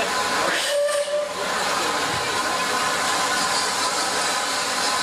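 Rebuilt Bulleid West Country class steam locomotive 34046 Braunton standing and blowing off steam, a loud steady hiss that dips briefly about a second in.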